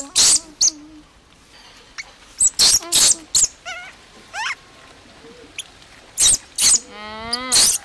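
A baby macaque screaming sharply in short, piercing cries. Several come in a quick cluster a few seconds in and more near the end, with a longer wavering whine just before the end. These are distress screams while it is held and undressed for a bath.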